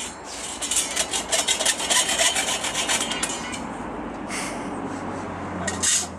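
Hacksaw cutting through a galvanized steel profile rail with quick back-and-forth rasping strokes that stop about three seconds in. Two short, louder noises follow near the end.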